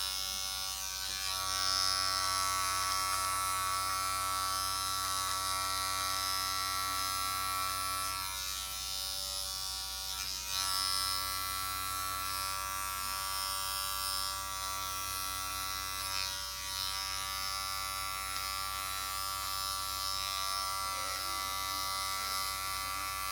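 Inexpensive electric hair clippers running steadily with a continuous buzzing hum while trimming along the hairline for a line-up.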